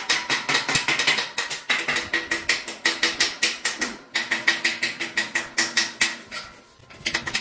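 Rapid, even metallic clicking, about eight to ten clicks a second, from work on a steel pig crate; it breaks off for about a second near the end, then starts again.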